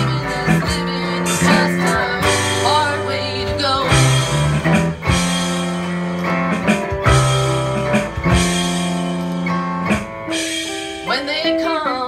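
Live band playing an instrumental passage: electric and acoustic guitars over a bass line and steady drum hits, with some notes sliding in pitch.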